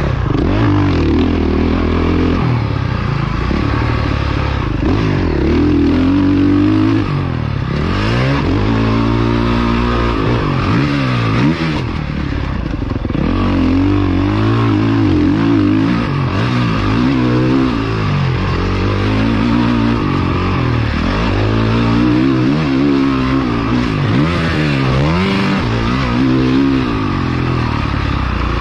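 Dirt bike engine revving up and dropping off over and over as the rider opens and closes the throttle and shifts while riding a motocross track.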